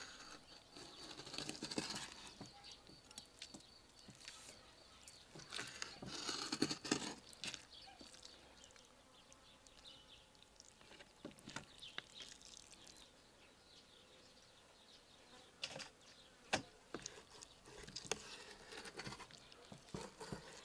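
Kitchen knife slicing through a raw carp fillet on a wooden cutting board: quiet, intermittent scraping and wet cutting strokes with scattered small clicks.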